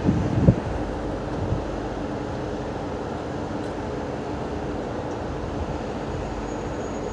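Steady mechanical hum of a WAP7 electric locomotive standing at the coaches, with a couple of sharp knocks in the first half second.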